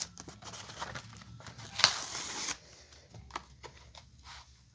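Plastic blister pack and cardboard backing of a toy car being pulled and torn open by hand: scattered crinkles and clicks, with a longer rustle about two seconds in.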